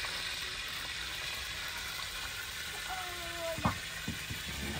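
Ghee heating in an iron karahi over a wood fire, sizzling with a steady hiss as it bubbles: it is not yet fully hot. About three and a half seconds in comes a sharp knock, just after a brief faint call.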